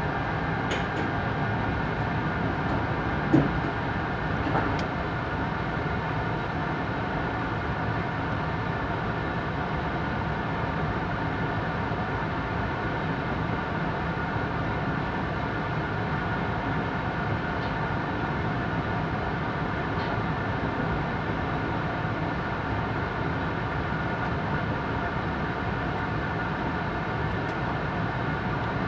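Cabin noise on the upper deck of a JR East E4 series Max double-decker Shinkansen running at speed: a steady rumble and rush with faint steady tones. A single sharp knock stands out about three seconds in, with a softer one just after.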